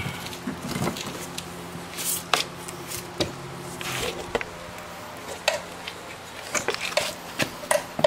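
Scattered light clicks and knocks of handling, over a faint steady hum that stops about halfway through.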